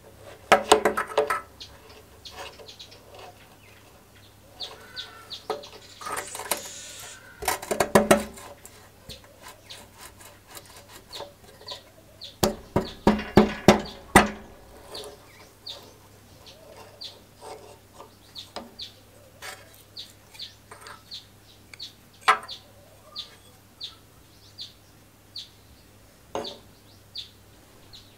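Metal clicks and clacks as the rusty chain sprocket and lever on an old Suffolk Punch lawnmower's drive shaft are worked by hand, loudest in bursts near the start, around 6 to 8 seconds in, and just before halfway. From about halfway on, a bird chirps repeatedly in short, evenly spaced notes.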